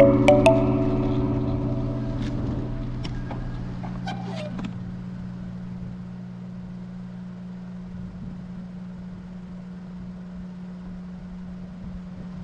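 Background music with held notes and a few plucked notes, fading out over the first five seconds or so, leaving a steady low hum with faint noise.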